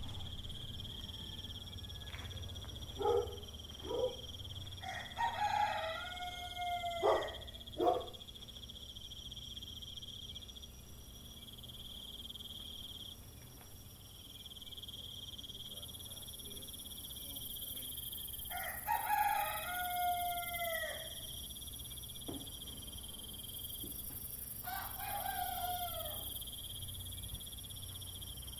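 A rooster crowing three times, each crow drawn out and falling away at the end, over a steady high-pitched insect drone. A few short calls come in the first eight seconds.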